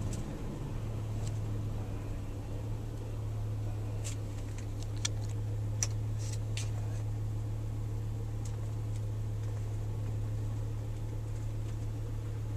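Steady low hum inside a running car, with a handful of sharp, light clicks between about four and seven seconds in.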